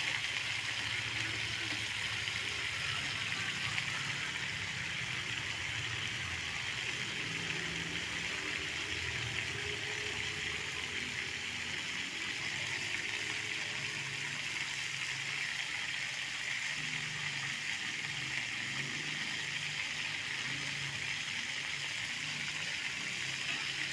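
Patin (pangasius) fish heads frying in hot oil in a wok: a steady sizzling hiss as they fry to dry out.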